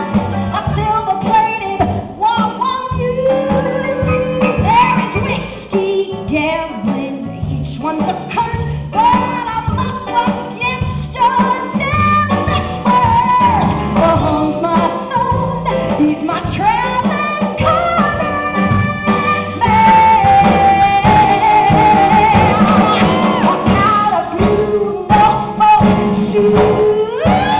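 A woman belting a show tune live with instrumental accompaniment. It grows louder about two-thirds of the way through, with long held notes.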